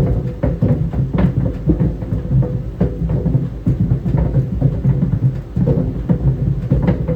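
Tennis balls tumbling in a running clothes dryer: a steady low rumble from the turning drum, with rapid, irregular thuds and knocks as the balls fall against it, over a faint steady hum.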